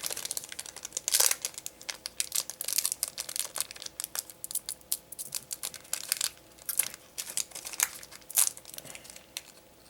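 Digimon trading card booster pack wrapper crinkling and tearing as it is worked open by hand, an irregular run of sharp crackles with a few louder rips.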